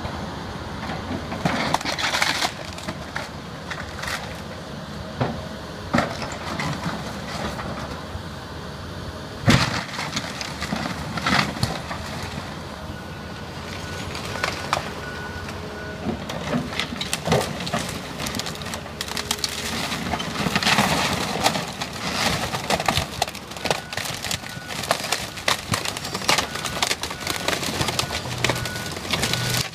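Excavator demolishing a wood-frame house: the diesel engine runs steadily under irregular cracks, splintering and clattering of wood framing and sheet metal as the bucket and thumb crush and lift the debris. The loudest crash comes about ten seconds in.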